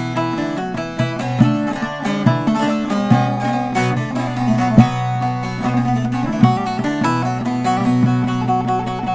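Short-neck bağlama with a juniper bowl played with a plectrum: a quick picked melody over steady low drone strings, with a sharp accented stroke about five seconds in.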